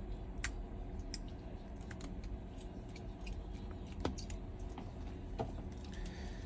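Scattered light clicks and small metallic taps of hand tools on smartphone parts, over a steady low hum.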